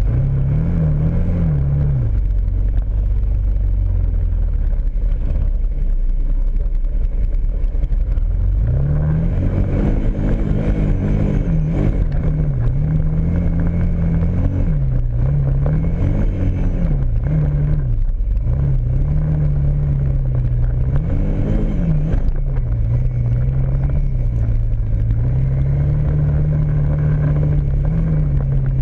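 Kawasaki Brute Force ATV engine running close up. It holds a low, fairly steady note for the first several seconds. About nine seconds in it begins revving up and down again and again as the throttle is worked. Near the end it settles to a steadier pitch.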